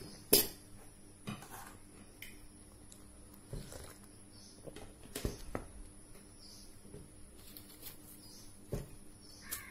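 Scattered light knocks and clinks of steel plates and a spoon being handled and set down on a table, the sharpest just after the start, over a faint steady hum.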